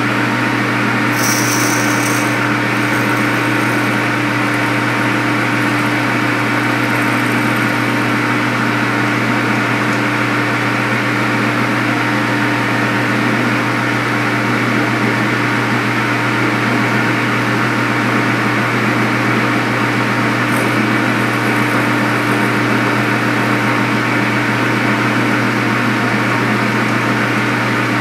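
Metal lathe running steadily while a twist drill bores into the end of a spinning bronze workpiece, a constant machine hum with a few steady tones.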